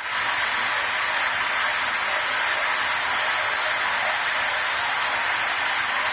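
Shower running: a steady hiss of water spray falling.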